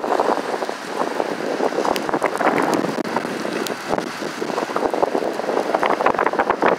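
Strong wind buffeting the microphone with an uneven crackle, over choppy Lake Erie waves washing and splashing across a flooded pier walkway.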